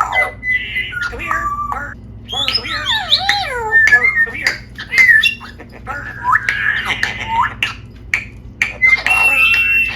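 Pet parrot calling loudly: a run of gliding, warbling whistles mixed with harsh squawks, ending in a long screech.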